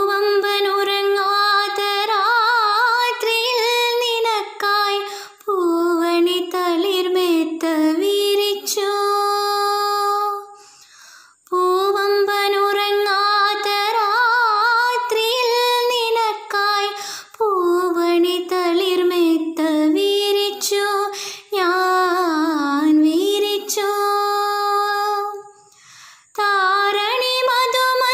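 A girl singing solo with no accompaniment, a slow song in long held notes with a wavering vibrato and gliding runs between pitches, in phrases broken by short pauses for breath.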